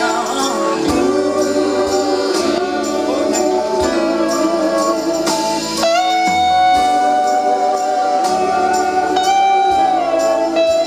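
Live rock band playing loudly, with an electric slide guitar carrying long held notes that glide up and down over the band.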